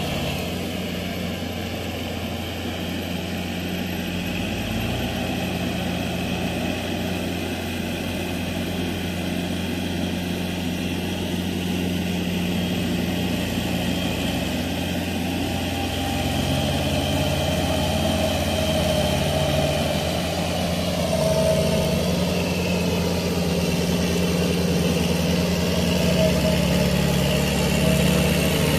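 Kubota L5018 tractor's four-cylinder diesel engine running steadily under load while tilling a rice paddy, growing gradually louder as it comes closer.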